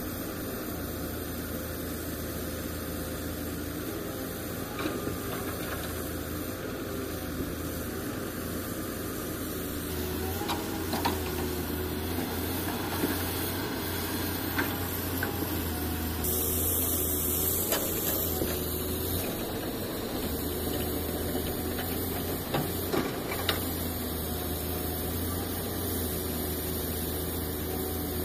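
Diesel engines of a Volvo excavator and a Tata dump truck running with a steady low drone, a little louder from about ten seconds in, with scattered knocks and clanks as the excavator loads the truck.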